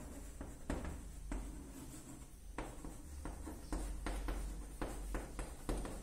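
Chalk on a blackboard as words are written: an irregular string of short taps and scratches.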